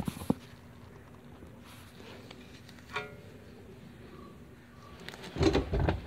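Handling clatter from work on a car's front disc brake: two sharp clicks at the start, a brief metallic clink about three seconds in, and louder knocking and rubbing near the end.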